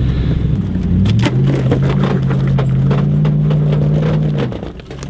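Four-wheel drive's engine revving up about a second in and held under load as it climbs a rocky track, with rocks cracking and crunching under the tyres; near the end the revs drop back and it goes quieter.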